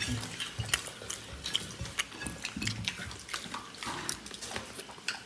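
Eating rice and curry by hand: wet squishing of rice and curry mixed by fingers in ceramic plates, with many small irregular clicks and mouth smacks.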